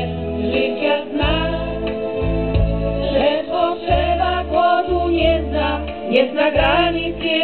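A female vocal trio singing a song together through a PA system, over instrumental backing with sustained low bass notes.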